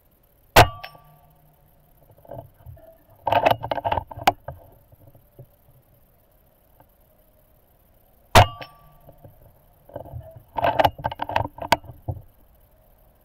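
Two shots from a PCP air rifle, each a sharp crack followed by a short ring from the steel gong target. Each shot is followed a few seconds later by a run of mechanical clicks and clacks from the rifle being cocked and reloaded.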